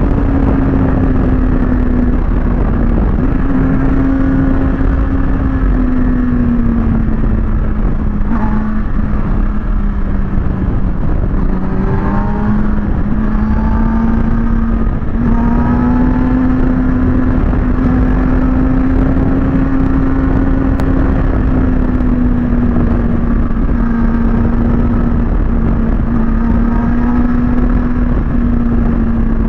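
Kawasaki ZX-6R sport bike's inline-four engine running at steady high revs, its pitch easing down a little and then climbing back, under heavy wind rush. A fainter, higher engine whine comes and goes about halfway through.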